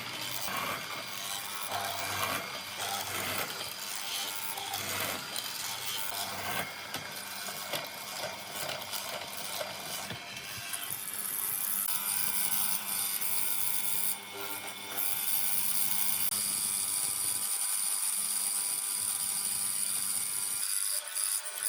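Woodworking on timber: irregular scraping and knocking on wood, then from about halfway a power tool starts a steady high-pitched hiss that carries on to the end.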